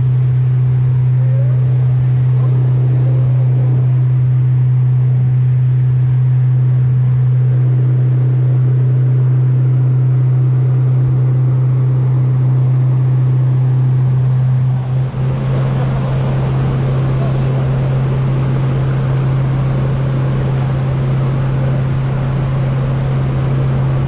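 Outboard motor of a small aluminium boat running at a steady cruising speed, heard from on board as a constant low drone. About fifteen seconds in, a rushing hiss of water and wind grows louder over it.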